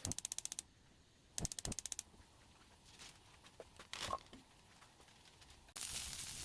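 Two short bursts of rapid ratcheting clicks, a few softer knocks, then food starts sizzling in a hot pan near the end.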